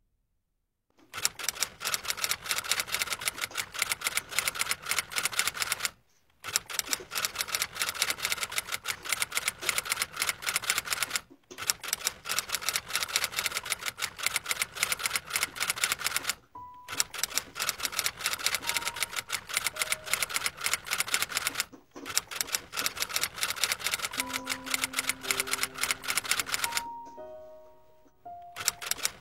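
Fast typing on a portable typewriter: five long runs of rapid keystrokes, each several seconds long, broken by short pauses. A few slow, single music notes come in near the end.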